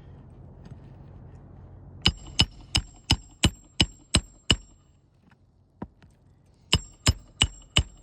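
Hammer driving roofing nails into an asphalt shingle: a run of eight ringing strikes at about three a second, a single lighter tap, then four more strikes.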